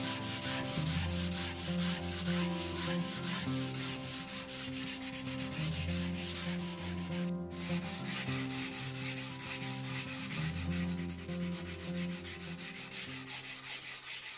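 Hand sanding aspen wood with sandpaper: quick back-and-forth strokes make a steady rasping hiss, which breaks off briefly about seven seconds in. Soft instrumental music plays underneath.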